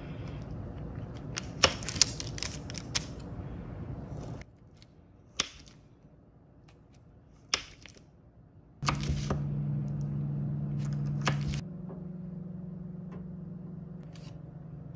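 Knife slicing through a firm log of chocolate almond cookie dough, with sharp clicks as the blade cuts through and meets the surface beneath. A steady low hum runs underneath and changes at abrupt cuts, dropping away about four seconds in and returning as a humming tone about nine seconds in.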